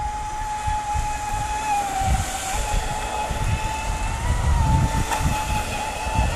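Traxxas Spartan RC boat's brushless motor running at speed on 6S LiPo, a steady high whine that wavers slightly in pitch, with gusts of wind rumbling on the microphone.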